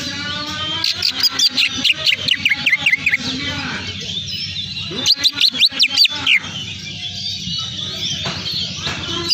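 Songbird chirping in fast bursts of short, high, downward-sweeping notes, one run about a second in and another around five seconds in. It is a lure call played to get a caged bird to start singing.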